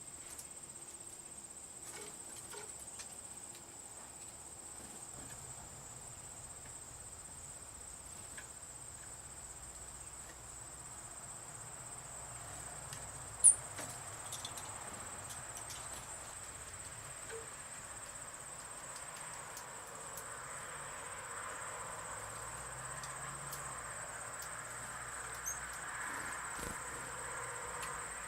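Insects trilling outdoors in one steady, high-pitched drone, with a single sharp click about thirteen seconds in. A faint rushing noise swells in the second half.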